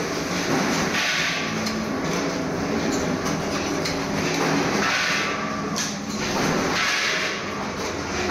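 Food-packing line machinery running: a steady mechanical din with a hiss that swells every second or two.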